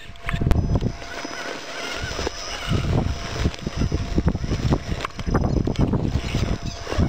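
Electric drive motor and gears of an Axial Wraith radio-controlled rock crawler giving a thin high whine as it crawls over rocks. Gusty wind rumbles on the microphone and is the loudest sound throughout.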